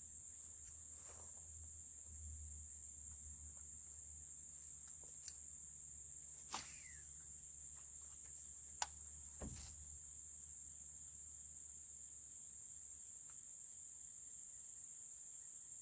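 Steady high-pitched chorus of insects, with a few brief sharp clicks in the middle.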